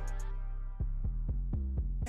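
Background music with a beat of deep, falling-pitch drum hits under held tones; the high ticking cymbal pattern drops out just after the start.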